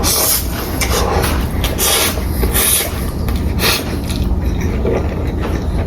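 Close-miked mukbang eating sounds: chewing of Jjapaghetti noodles and pan-fried dumplings in irregular noisy bursts about a second apart, over a steady low hum.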